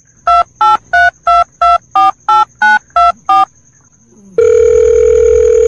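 Touch-tone telephone keypad beeps, a phone-dialing sound effect: ten short two-note key tones at about three a second, then a loud steady electronic tone starting about four seconds in.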